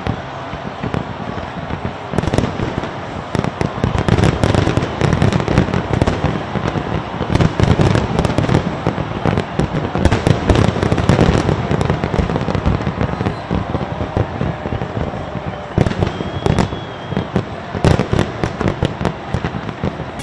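Aerial fireworks going off in a dense, continuous barrage of bangs and crackles.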